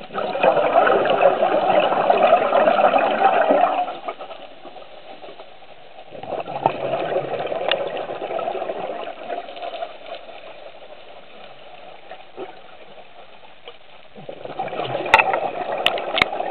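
Scuba regulator exhaust bubbling underwater in three long bursts a few seconds apart, the rhythm of a diver's slow breathing, with quieter stretches between the exhalations. A few sharp clicks near the end.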